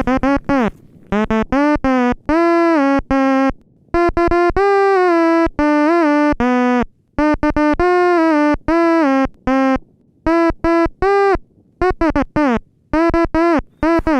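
Synthesizer melody of short, separate notes, a few sliding down in pitch as they end, with brief gaps between phrases.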